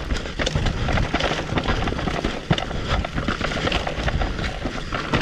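Mountain bike descending rough singletrack at speed: the tyres crackle over the trail surface and the bike rattles with a dense run of sharp knocks over a low rumble.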